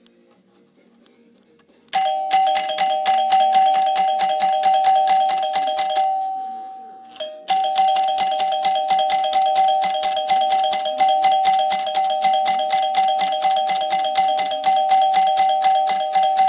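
Electric doorbell ringing continuously, its hammer striking the gong in a rapid trill at one steady pitch. It rings for about four seconds, stops, then rings again for about ten seconds.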